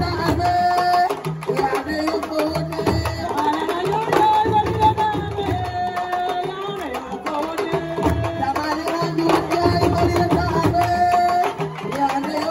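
A woman singing into a microphone in long held, gliding phrases over a fast, dense beat of hand drums.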